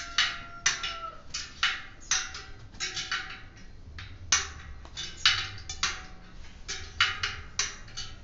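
Bicycle tyre being worked off its rim by hand: a quick, irregular series of short rubbing and scraping sounds of rubber against the rim, about one or two a second.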